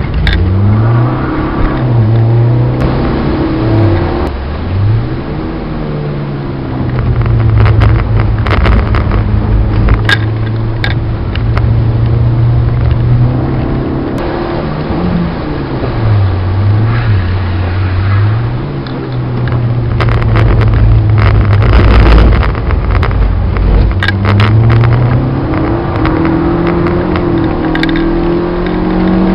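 Citroen Saxo VTS's 1.6-litre four-cylinder petrol engine heard from inside the cabin at racing pace: revs dip and rise through gear changes a few times, hold level on the straights, and climb steadily near the end.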